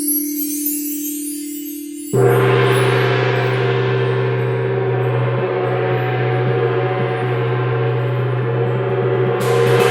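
A singing bowl sounds a steady tone, then about two seconds in a gong is struck and rings on with a deep hum and dense overtones. It is struck again near the end.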